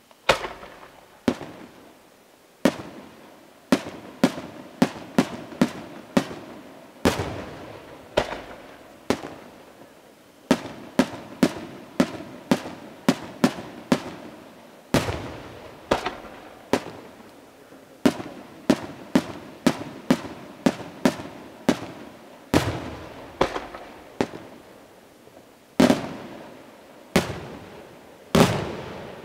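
Aerial firework shells bursting in a fast sequence: dozens of sharp bangs, often less than a second apart, each trailing off in an echo.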